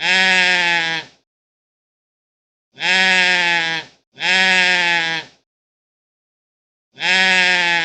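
Goat screaming: four loud, drawn-out bleating cries of about a second each, separated by silence. The second and third come close together, and the fourth begins near the end.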